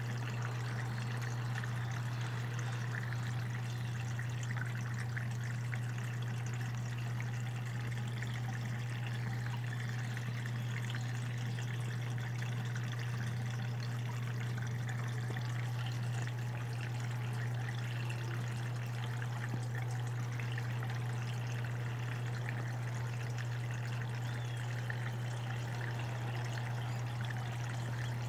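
Electrolux Turbo Economia 8.5 kg washing machine filling: water pouring steadily into the drum, over a constant low hum.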